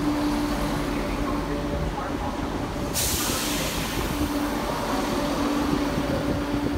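Northern Class 170 Turbostar diesel multiple unit with its diesel engines running, a steady hum alongside the platform. About three seconds in, a loud hiss starts suddenly and carries on.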